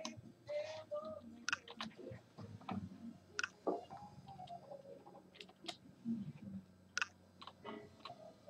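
Scattered light clicks and taps from hands at a computer desk, like a mouse and keyboard being used, coming irregularly a few times a second.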